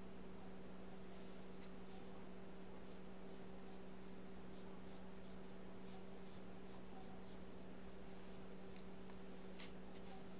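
Faint brush strokes of gouache on paper: short scratchy strokes at roughly two to three a second, over a steady low hum.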